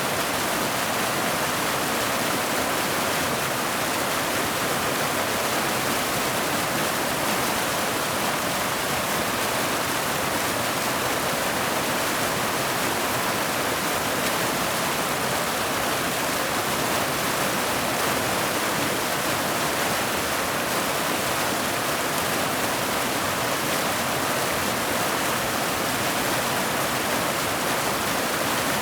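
Mountain waterfall cascading over boulders into a pool: a steady, unbroken rush of falling water.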